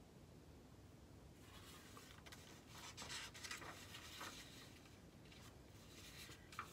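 Faint rustling of paper as the pages of a picture book are handled and turned, starting about a second and a half in and dying away after a few seconds, with a few small clicks.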